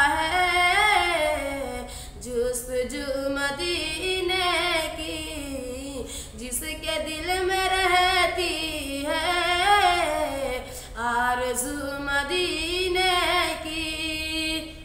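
A boy singing a naat solo, unaccompanied, in a high voice: long melodic phrases with held, wavering notes and short breaks between lines.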